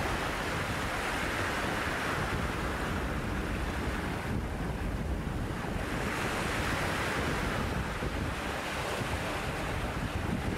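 Choppy, wind-driven bay waves splashing and breaking, with wind buffeting the microphone as a heavy low rumble. The surf swells and eases: loud in the first few seconds and again after about six seconds, with a lull around five seconds in.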